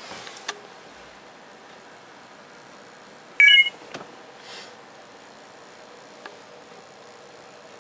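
A single short, loud electronic beep about three and a half seconds in, over faint room hiss, with a couple of faint clicks after it.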